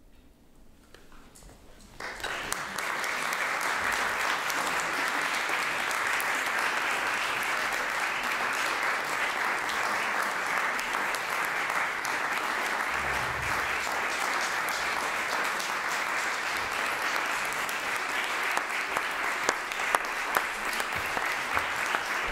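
A brief hush, then audience applause that breaks out suddenly about two seconds in and carries on steadily.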